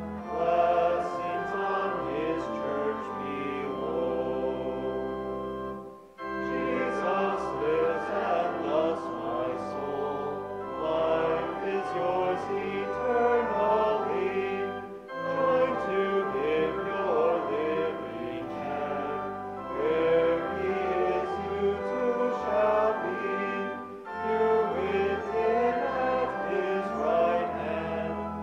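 A church congregation sings an Easter hymn with instrumental accompaniment. The music drops out briefly about six seconds in, between lines.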